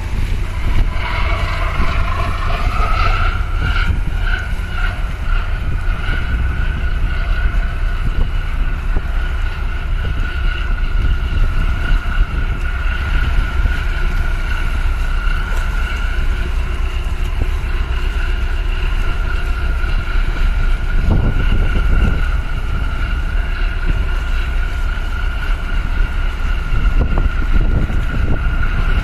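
Wind rumbling on the microphone and water washing at the breakwater, under a steady high machinery whine from the passing container ship and tug that rises in pitch over the first few seconds and then holds.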